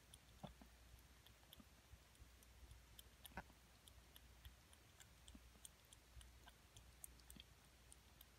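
Near silence with faint, irregular clicks of a tabby cat eating from a plastic bowl, the loudest about three and a half seconds in.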